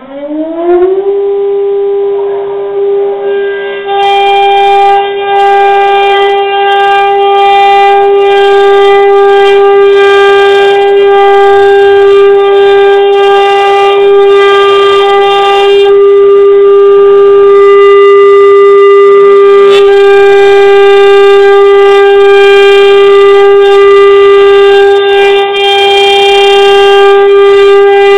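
CNC router spindle motor spinning up with a quickly rising whine, then running at speed with a loud, steady high-pitched whine.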